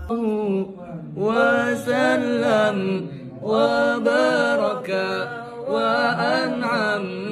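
A young man's solo voice singing an Arabic devotional sholawat chant without accompaniment, in three long melismatic phrases with short breaks for breath between them.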